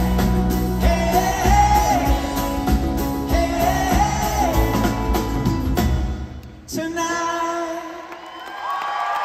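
Live pop-rock band playing with a male lead singer: drums, bass and guitars under the vocal. About six seconds in the band cuts out abruptly, and sustained chords and singing carry on without drums or bass.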